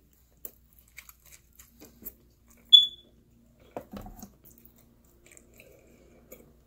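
Close-up chewing of pizza crust: soft wet clicks and crunches of mastication. A short, high beep sounds a little under three seconds in, louder than everything else, and a dull knock comes about four seconds in.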